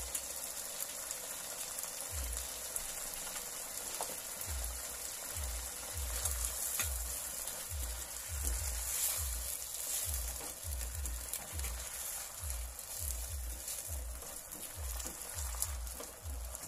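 Tuna, sausage and tomato mixture sizzling in a nonstick frying pan, a steady hiss. From about four seconds in it is stirred with a silicone spatula, with soft low thuds about twice a second.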